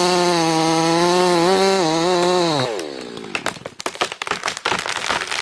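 A loud buzzing drone, motor-like, held steady for nearly three seconds, then sliding down in pitch as it dies away, followed by a run of rapid crackling clicks.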